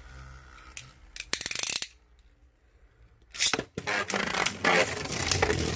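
Plastic rasping and scraping from a Beyblade ripcord launcher as the ripcord is worked through it, with clicks. It comes in stretches: one a little after a second in, a short quiet gap, a loud burst at about three and a half seconds, then more rasping.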